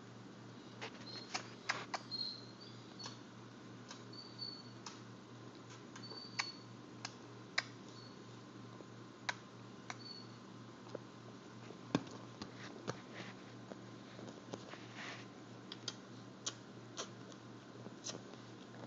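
A baby making kissing noises: short lip smacks every second or so, with a few faint high squeaks in the first half.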